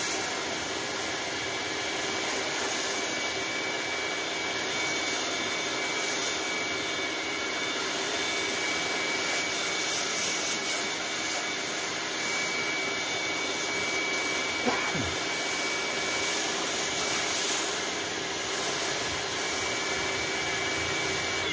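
Pressure washer running steadily, its motor and pump giving a constant whine over the hiss of the water jet as it sprays grime off styrofoam hydroponic panels.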